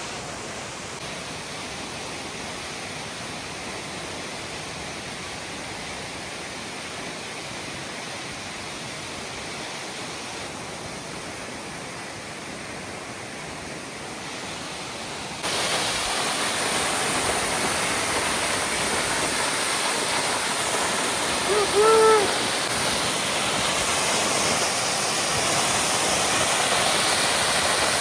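Waterfall: a steady rush of falling water that suddenly gets louder about halfway through. A brief pitched sound cuts through the rush about two-thirds of the way in.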